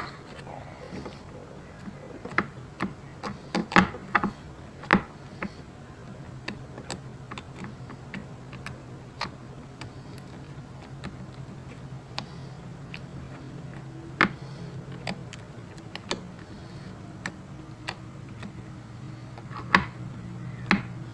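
Glossy slime being played with by hand, giving irregular sharp clicks and pops, with a faint steady low hum underneath.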